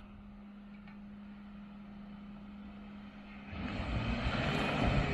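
Jeep engine running with a low steady hum, then a louder, rougher rush of engine and tyre noise comes in about three and a half seconds in.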